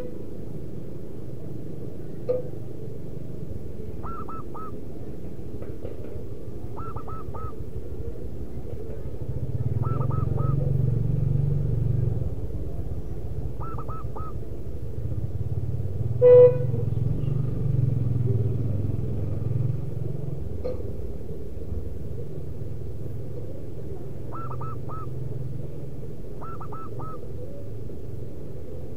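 Zebra dove calling: short phrases of three or four quick notes, repeated every few seconds. A low engine rumble from passing traffic swells twice through the middle, and there is one brief loud blip about sixteen seconds in.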